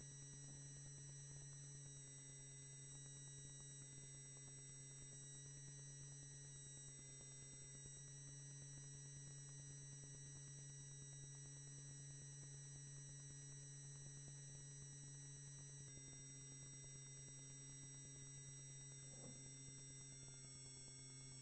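Faint, steady electronic hum with several thin, constant high tones, unchanging throughout; no other sound apart from a tiny blip near the end.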